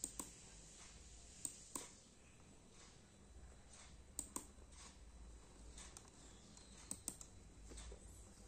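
Quiet room tone broken by a few sharp clicks, mostly in pairs a fraction of a second apart, four times.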